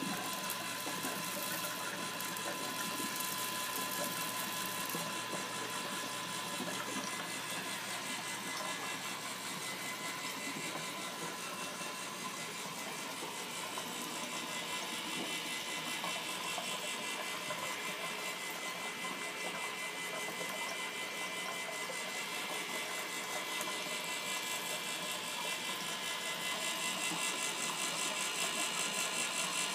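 Small electric rotisserie motor running steadily, driving a drill-bit auger inside a PVC feed tube, with a steady hum. It gets a little louder near the end.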